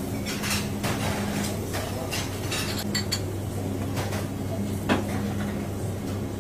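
Ceramic plates clinking and knocking on a countertop while fish is being floured, a scatter of short clinks with the sharpest about five seconds in. A steady low hum runs underneath.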